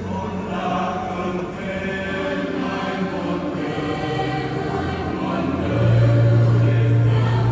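Church choir singing, heard over the church's sound system. A deep, steady bass note joins about six seconds in and becomes the loudest part.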